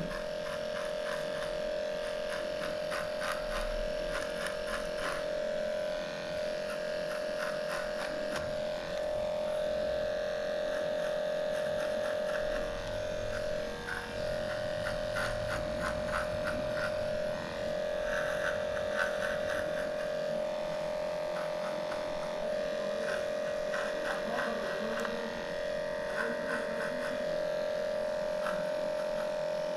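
Cordless dog clippers running with a steady hum as they trim matted hair from a small dog's paw, with short patches of rapid ticking over the hum.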